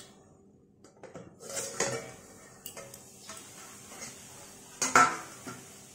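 Aluminium lid lifted off a metal kadai with a spatula, metal scraping and clinking, then a louder metallic clank about five seconds in.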